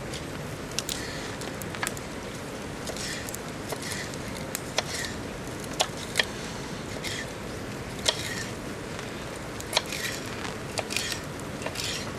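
Wood campfire crackling, with sharp pops and short hissing spits at irregular intervals, over a steady hiss of rain.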